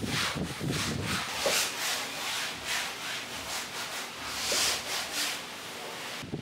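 A cloth rag scrubbed back and forth over a stretched canvas, rubbing in acrylic paint. It makes a dry, rasping hiss at about two strokes a second, and the strokes stop just before the end.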